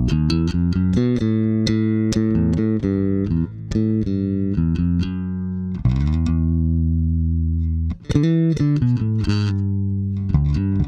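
FGN Neo Classic Jazz Bass played solo through its stock pickups. It plays a run of quick notes, holds one note for about two seconds past the middle, then returns to a flurry of sharp, quick attacks.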